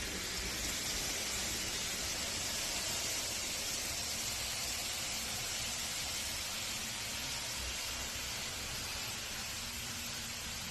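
N scale model trains running on the layout: a steady hiss with a faint low rumble underneath.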